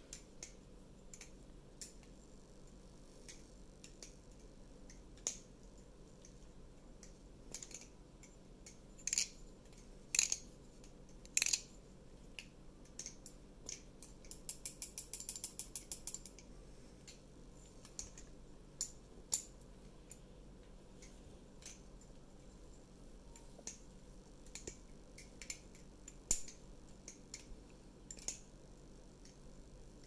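Butterfly knife (balisong, a Glidr Sahara clone) being flipped: scattered clicks as the handles knock together and swing on their pivots. The loudest clacks come about a third of the way through, with a quick run of rapid, even clicks around the middle.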